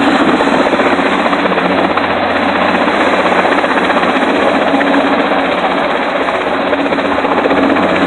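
Helicopter hovering with a load slung on a long cable, lifting rooftop air-conditioning units; its rotor and engine make a loud, steady noise throughout.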